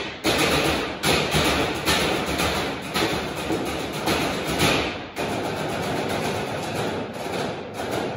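Percussion quartet beating metal trash cans with drumsticks in a rhythmic ensemble groove, clanging hits with hall reverberation. Strong accented strikes fall about once a second at first, then from about five seconds in the playing turns into a denser, more even run of strikes.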